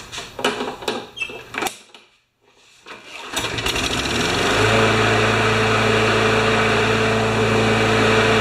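Briggs & Stratton Quantum 190cc single-cylinder engine on a Craftsman push mower starting up about three seconds in and settling into steady running, run to warm its oil before an oil change. Before it, a few knocks and clicks of handling.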